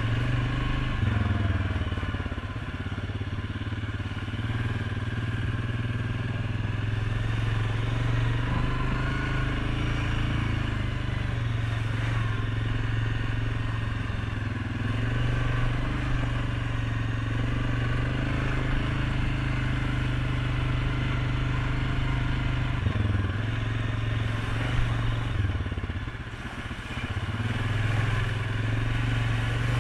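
2019 Suzuki KingQuad 750 ATV's single-cylinder engine running steadily as it rides along a dirt trail. The engine note dips briefly near the end.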